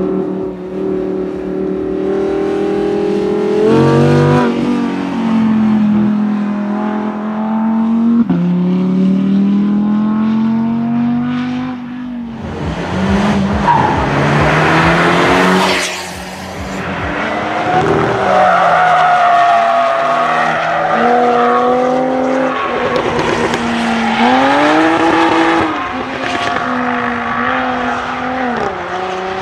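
Sports cars lapping a race circuit one after another, engines revving up and dropping back through gear changes as they go by.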